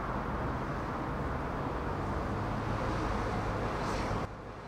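Steady roadside traffic noise, a broad rumble of vehicles on the highway; it drops off sharply about four seconds in.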